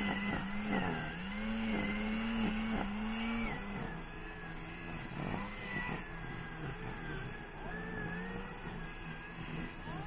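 A small engine running steadily, its pitch wavering a little, growing slightly quieter about four seconds in.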